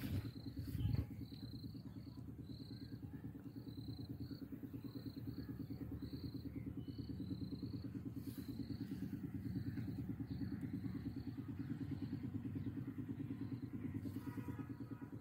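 An engine runs steadily with a low, fast, even thumping. Over it a short high chirp repeats about twice a second. A louder low rumble of handling or wind noise comes in the first second.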